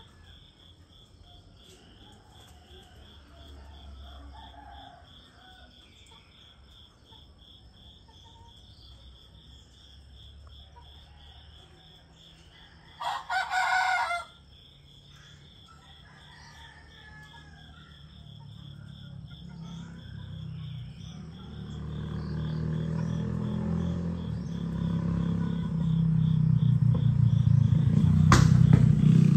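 A rooster crows once, about halfway through, over a steady pulsing insect trill. In the second half a motor vehicle's engine grows steadily louder.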